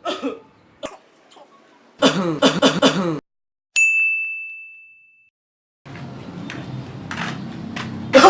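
A single bright ding sound effect about four seconds in, one clear tone that rings out and fades over about a second and a half. Before it comes a loud burst of a person's voice, and from about six seconds on a steady music bed starts.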